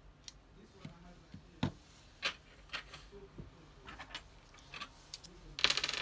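Small clicks and taps from handling a keypad's rubber key seal and metal front plate, scattered, the sharpest about one and a half and two seconds in, then a quick burst of rapid clicks near the end.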